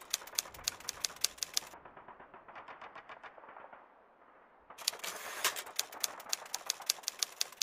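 Typewriter keystroke sound effect: rapid runs of sharp clacks, several a second, in time with on-screen text being typed out. One burst stops under two seconds in, a few fainter clacks follow, and a second dense burst starts a little before the five-second mark.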